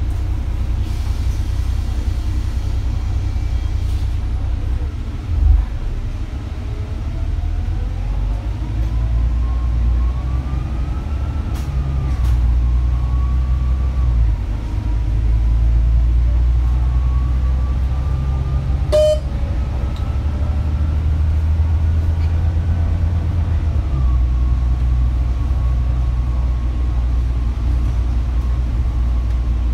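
Bus in motion, heard from inside: a steady low engine and road rumble with a whine that rises in pitch as the bus gathers speed, twice, then drops back. A single thump comes about five seconds in and a sharp click near the middle.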